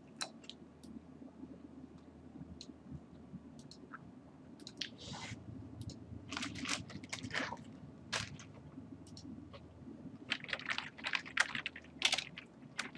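Computer keyboard and mouse clicking: scattered clicks from about halfway in, then a quick run of keystrokes near the end, over a low steady hum.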